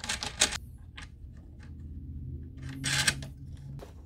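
Wooden leg of a folding massage table being adjusted: a scrape of wood sliding, then a sharp knock about half a second in as the leg extension seats. Light clicks follow, and there is another scrape near three seconds.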